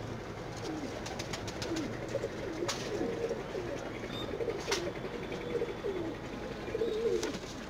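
Domestic pigeons cooing over and over, with a few sharp clicks in between.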